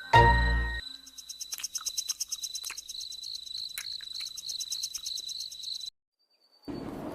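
A music note dies away, then a cricket-like insect chirps in a high, steady, evenly pulsed trill that cuts off suddenly about six seconds in.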